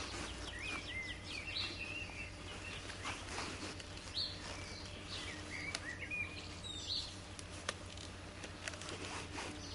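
Small birds chirping in short calls over the rustle and faint clicks of gloved hands handling fabric on a rifle.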